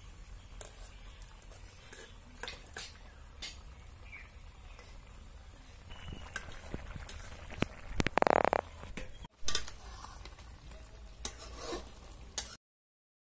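Metal spatula scraping and clicking against a kadai of fish and raw jackfruit frying in oil, with a steady sizzle underneath. The clatter gets louder about eight seconds in.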